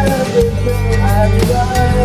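Rock ballad music: drum kit and bass backing under a melody line that slides between notes.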